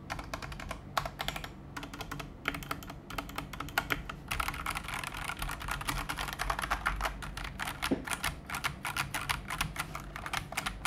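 Typing on a Daxa M100 Pro mechanical keyboard with PBT keycaps: a continuous run of key clicks that gets faster and denser about four seconds in.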